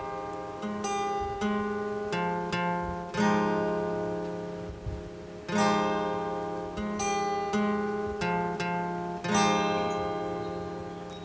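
Acoustic guitar playing a song's instrumental introduction: chords struck about once a second and left to ring, with stronger strokes every few seconds.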